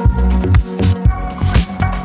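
Background electronic music with a steady kick-drum beat and sustained synth tones.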